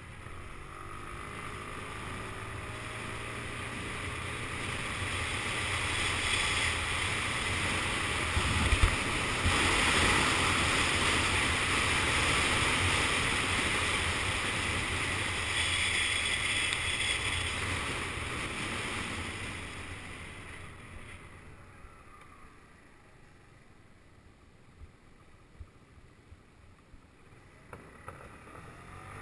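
Motor scooter ridden along a road: a low engine hum under a rush of wind noise. The sound swells as the scooter gathers speed and is loudest around the middle, then falls away to a quiet, low running sound with a few small knocks as it eases off over the last third.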